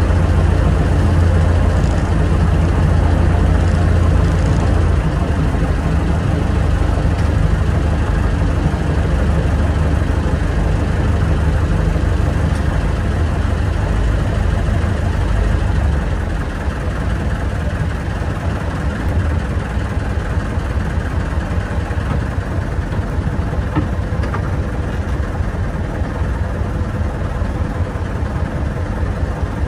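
A fishing boat's engine running steadily with a low drone; it becomes a little quieter about sixteen seconds in.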